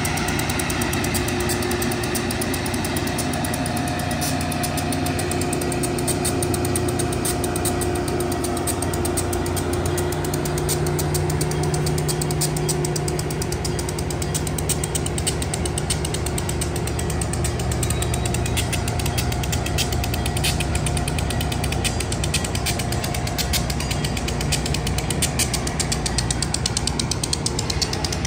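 Diesel locomotive engine running steadily while a passenger train rolls slowly past, with fast clicking and rattling from the wheels and cars that grows stronger in the second half.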